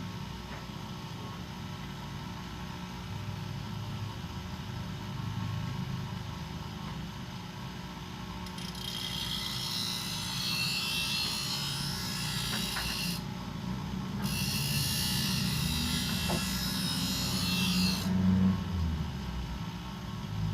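Bench grinder motor running with a steady hum, as a thickness planer blade is sharpened against the wheel: two passes of grinding hiss, each about four seconds long, begin about halfway through with a short break between them.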